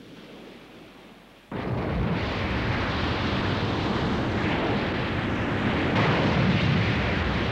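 Cartoon sound effect of a huge dome surging up out of the sea: after a faint hush, a loud rumble with churning water sets in suddenly about a second and a half in and keeps going steadily.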